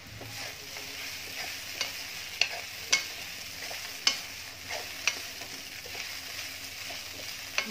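Wooden spatula stirring soaked poha in a hot metal kadai, over a steady frying sizzle, with several sharp knocks of the spatula against the pan.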